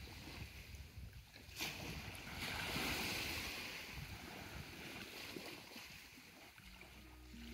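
Wind and water at the shore: a steady rushing noise that swells suddenly about a second and a half in, then slowly fades.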